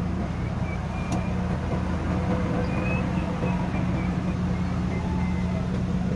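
Heavy diesel cargo truck engine running at low, steady revs as the truck rolls slowly past, a constant low hum.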